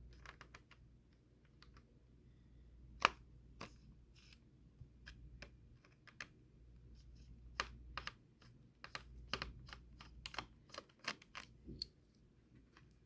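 Irregular small clicks and taps of a Torx screwdriver working screws out of a laptop's battery and plastic case. One louder knock comes about three seconds in, and the clicks come thick and fast in the second half.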